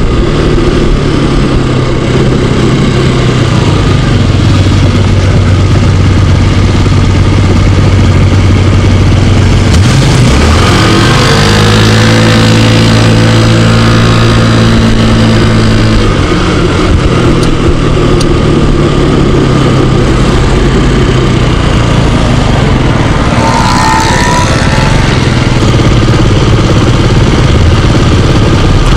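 Small scooter engine running under way, with wind and road noise on the microphone. About ten seconds in it accelerates, its pitch rising for several seconds before settling again. It pulls cleanly now that a clogged air cleaner, which had made it bog and stall, has been replaced.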